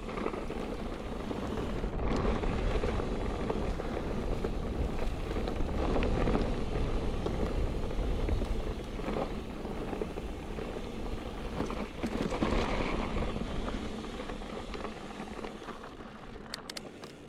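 Wind on the microphone and tyres rolling over a dirt trail as a mountain bike is ridden fast downhill, fading near the end, with a few sharp clicks just before it stops.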